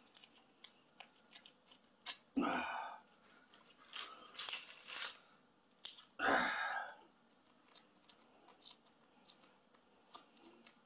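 Plastic sauce sachet being torn open and squeezed out over a bowl of noodles: small crinkling and clicking sounds, with three short louder rustles spread through.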